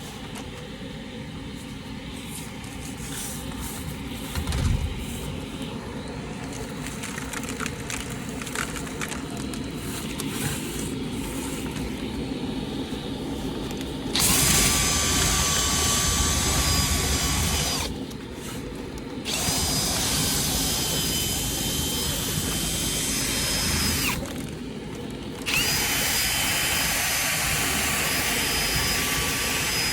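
Drill spinning a rotary dryer-vent brush on its whip inside the vent duct, clearing lint. It runs with a steady high whine in three runs of several seconds each, starting about halfway through. Before that come rattling and clicking of the whip in the duct over the steady noise of the duct vacuum.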